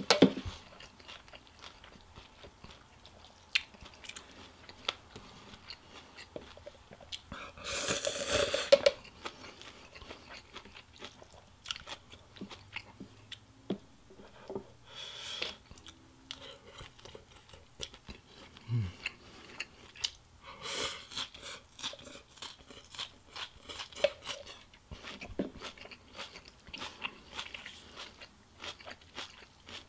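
A person eating pho noodle soup: chewing and mouth noises throughout, with a long slurp of noodles about eight seconds in and shorter slurps around fifteen and twenty-one seconds.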